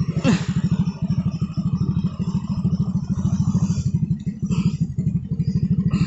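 Honda Supra's single-cylinder four-stroke engine idling steadily with an even, rapid putter.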